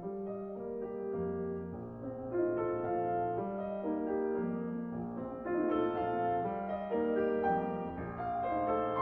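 Background piano music: a steady stream of gentle notes and chords.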